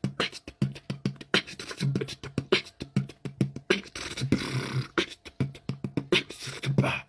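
A man's voice making short vocal sounds broken by many sharp mouth clicks and a few breathy hisses, dense and uneven, with no clear words.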